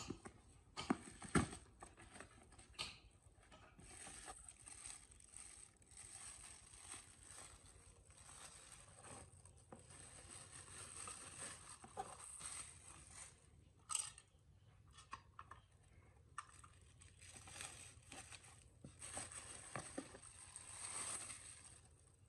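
Hand work on small metal parts: a few sharp knocks in the first second or so and another about halfway, with scraping or rubbing that comes and goes in between.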